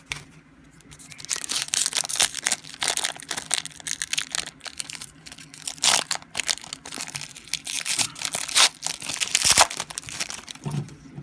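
Crinkly wrapper of a basketball trading-card pack being torn open and crumpled, a dense run of sharp crackles from about a second in until near the end.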